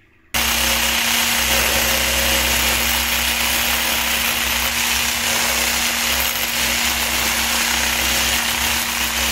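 Electric mixer switched on suddenly and running steadily at one speed, beating eggs until frothy.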